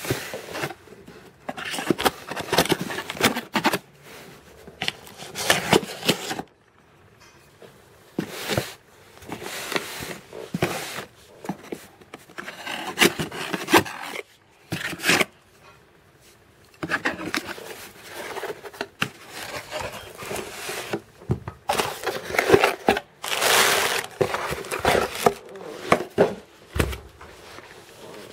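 A cardboard box being opened and unpacked by hand: irregular bursts of scraping and rustling packaging with clicks and knocks, broken by a few short pauses.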